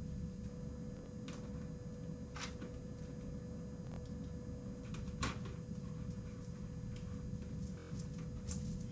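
Steady low room hum with a faint steady tone, and a few scattered light clicks or taps.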